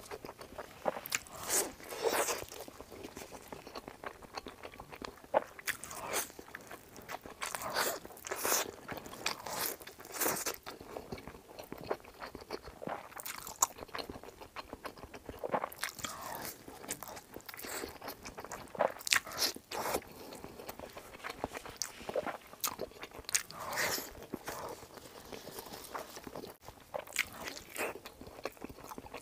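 Close-miked biting and chewing of a large, oily pork-belly zongzi of sticky glutinous rice: many short, irregular wet bites and chews follow one another.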